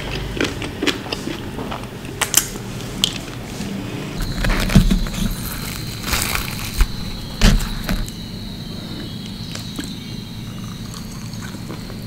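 Close-miked eating sounds: fingers handling and tearing puffy fried bhatura bread and mouth chewing, with many small crackly clicks and a few louder crunchy moments around the middle.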